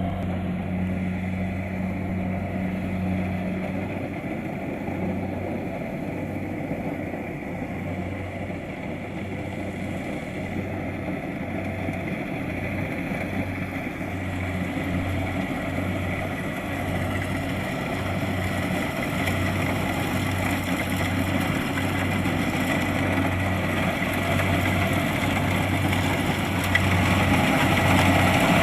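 Kubota DC-70 Plus rice combine harvester running steadily, its diesel engine droning with a pulsing low hum over the noise of the working machinery. It grows louder toward the end.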